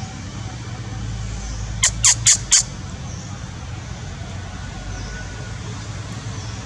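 Four quick, sharp, high-pitched animal calls in a row, about two seconds in, over a steady low background rumble.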